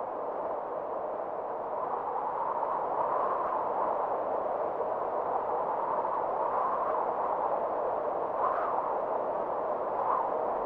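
Electronic music intro: a steady hiss-like synth drone centred in the mid range, swelling slightly about two seconds in, with a couple of faint blips near the end.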